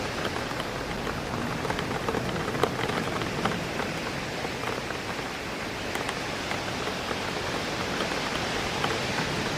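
Steady rain hitting a window, with many scattered drops ticking against the glass over a constant hiss of rain and wind through trees.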